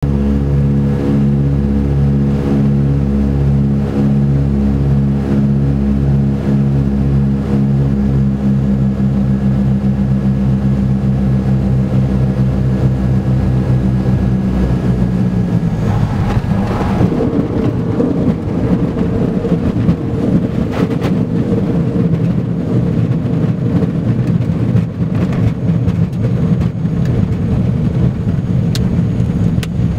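Single-engine light aircraft's engine and propeller droning steadily on final approach, the tone sinking slightly. About halfway through the wheels touch down on a gravel runway and the steady drone gives way to a rough rumble of tyres rolling on gravel, with scattered sharp ticks.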